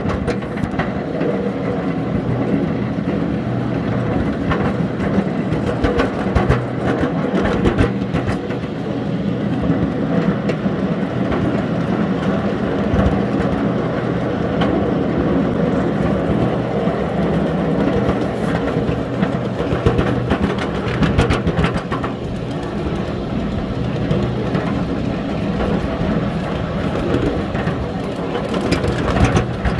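Small ride-on railway locomotive running steadily as it pulls a steel ballast car along the track, its engine droning with short clicks and rattles from the wheels over the rails.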